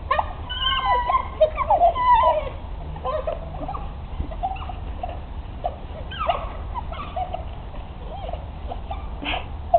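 A pack of African wild dogs twittering and whining: many short, squeaky, overlapping calls that slide up and down in pitch, busiest in the first couple of seconds, then scattered.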